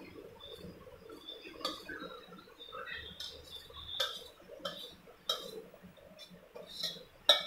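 A metal spoon scraping and clinking against a stainless steel saucepan as thickened milk is scooped out into cups. The clinks come at scattered moments, with the sharpest one near the end.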